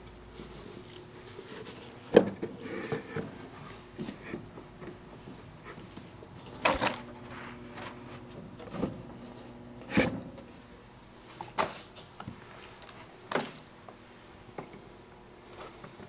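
Handling knocks and clicks as a spool of flux-cored welding wire is mounted on the spindle in a Miller-Matic MIG welder's wire-feed compartment: about half a dozen separate knocks, the sharpest about two seconds in.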